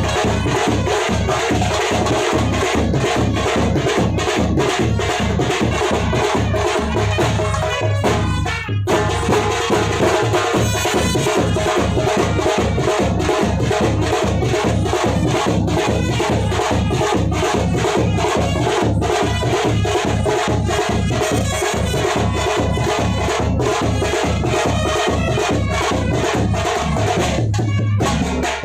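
Background music with a fast, steady drum beat, briefly breaking off twice.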